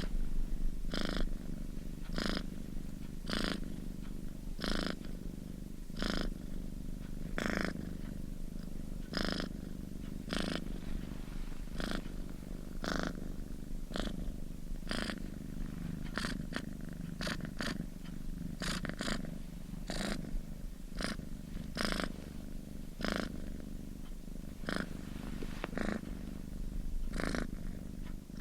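Domestic cat purring continuously, a low hum that swells with each breath, roughly every second or so.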